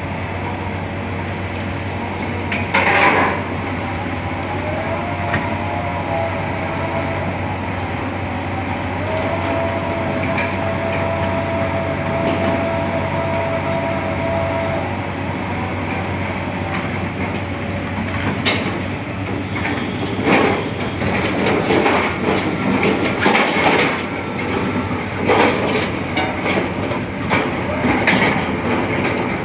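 Bauer BG 20 H drilling rig running steadily, with a held whine for a few seconds in the middle and repeated irregular metallic clanks and knocks in the last third.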